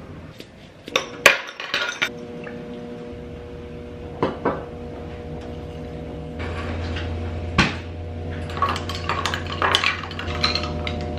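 Kitchen clatter of making iced coffee: the plastic cup and body of a small handheld espresso maker knocking and being set down on a stone counter, then a stirrer clinking against a glass in a quick run of clinks near the end. A steady low hum runs underneath and grows louder about halfway through.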